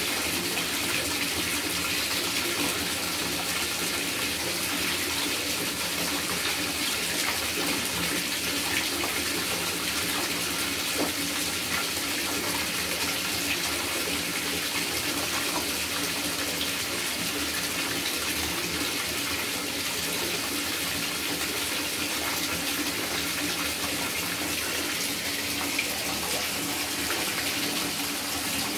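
Water running steadily from a tap into a bathtub, a constant even rush with no break.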